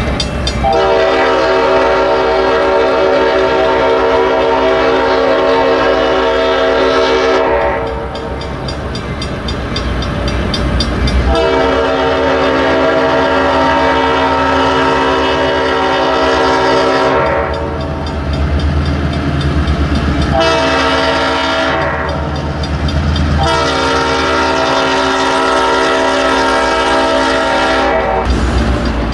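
Multi-chime horn of EMD GP9 diesel locomotive 222 sounding the grade-crossing signal as it approaches the crossing: two long blasts, one short and one long. The locomotive's diesel engine runs underneath.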